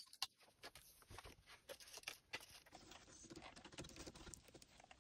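Near silence: room tone with faint, scattered small clicks and light rustling.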